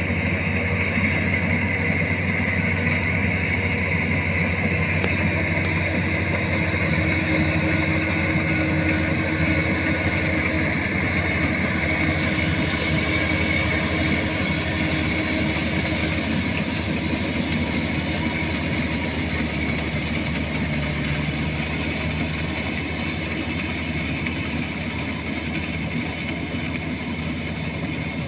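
Kubota combine harvester's diesel engine running steadily, with a steady high whine over the low engine drone; it eases off slightly near the end.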